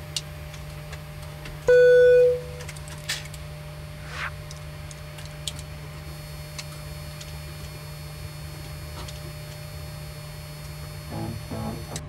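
Steady hum in a Boeing 737 cockpit with the APU running, broken by a few short switch clicks. About two seconds in there is one loud tone, under a second long. Guitar music starts near the end.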